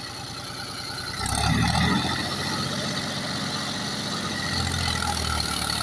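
Mahindra B 275 DI tractor's three-cylinder diesel engine running under load as it pulls a cultivator. About a second in the engine gets louder and deeper, then settles to a steady note.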